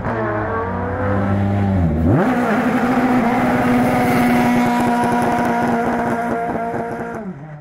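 Formula Renault single-seater race car engine revving up sharply about two seconds in, then held at a steady high pitch. Near the end it drops and fades out.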